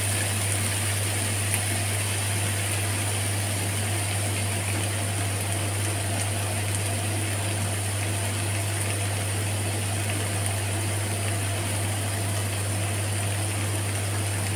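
Shrimp skewers sizzling on a hot stovetop grill pan, under a steady low hum. There is a single light click about one and a half seconds in.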